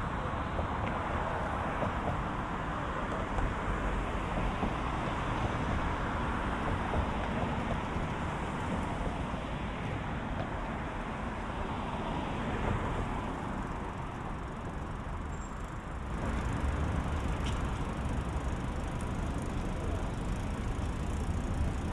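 Steady city road traffic: a continuous rumble of passing cars with no distinct single events, growing a little louder about sixteen seconds in.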